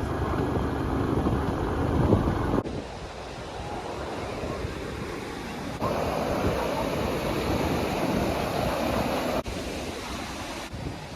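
Steady outdoor rushing noise with wind buffeting the microphone, cut into several short clips that change abruptly.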